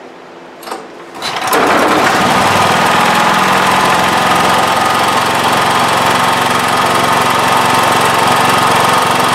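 Honda EB5000 generator's single-cylinder engine starting about a second in, then running steadily under no load.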